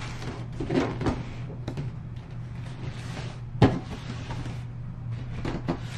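A large cardboard box being turned and slid on a tabletop by hand: scraping and rubbing cardboard with a few knocks, the sharpest about three and a half seconds in. A steady low hum runs underneath.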